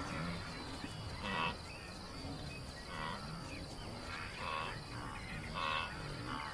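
Insects trilling steadily at night, with short animal calls repeating every second or two.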